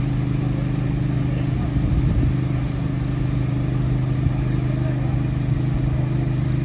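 A large engine running steadily at idle, a constant low hum.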